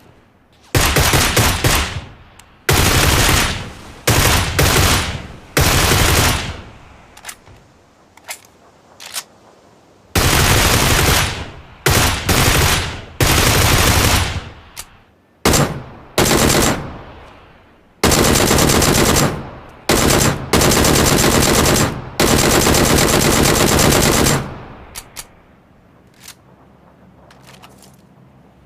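Gunfire sound effects: repeated bursts of rapid automatic fire, most about one to two seconds long, with shorter single shots between them, each dying away in a fading tail. The firing stops a few seconds before the end, leaving only faint clicks.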